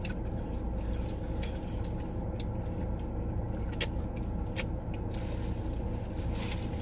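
Steady low rumble of a car cabin on the move, with a few short clicks.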